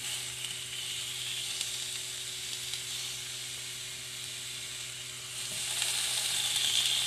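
Vegetables sizzling on the hot ribbed nonstick plate of a Starfrit Rock smokeless electric grill: a steady hiss that swells louder about five and a half seconds in.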